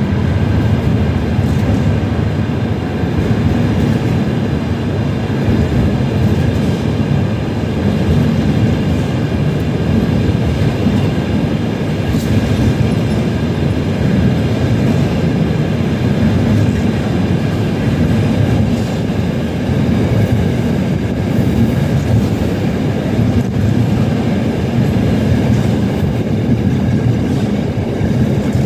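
Container freight train of Tesco-branded intermodal boxes on flat wagons passing close by at speed: a loud, steady rumble of wagon wheels on the rails with faint scattered clicks, under a station's arched trainshed roof.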